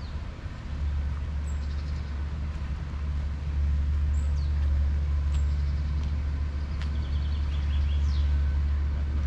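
Outdoor ambience: a steady low rumble, with birds chirping and calling over it, including a quick run of repeated notes near the end.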